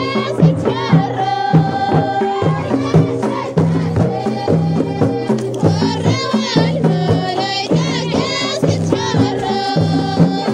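Ahwash, Amazigh folk music: voices singing in wavering, ornamented lines over a steady, evenly repeating drum beat.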